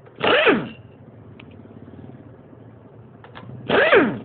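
Power wrench spinning the rear sprocket nuts off a Bajaj Pulsar NS 200 with a 14 mm socket: two short bursts, near the start and near the end, each falling in pitch as the tool winds down.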